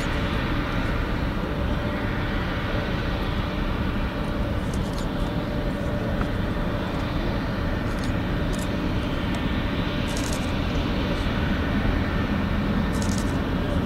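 Jet engines of a Boeing 777 freighter running at taxi power as the airliner rolls slowly toward the runway, a steady, even rumble with no change in pitch or level.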